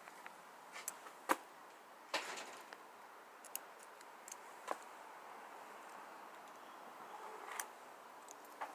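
Scattered faint clicks and taps over a low hiss, the sharpest about a second and a third in; no engine is running.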